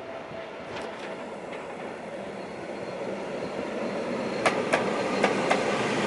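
Green Cargo Rc4 electric locomotive running light past at close range, its sound growing louder as it nears. A little after the middle come four sharp clicks in two pairs: its wheels crossing a rail joint.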